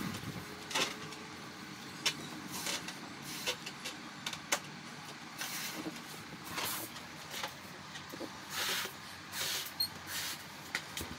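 A large latex balloon being blown up by mouth: a string of breathy puffs of air into the balloon and breaths between them, with a few short sharp clicks.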